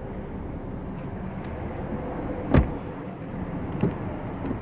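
A car door shut with one sharp thump about two and a half seconds in, followed by a lighter knock near four seconds, over steady background noise and handling rustle.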